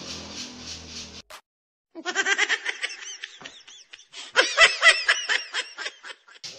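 Laughter in quick, high-pitched pulses, in two bouts after a brief silent gap about a second in; the second bout, about four seconds in, is the louder.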